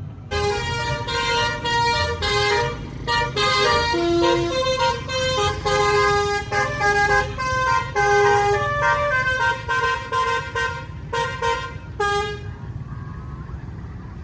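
Bus telolet horn playing a quick melody of short, stepping horn notes, cutting off near the end, over a low engine rumble.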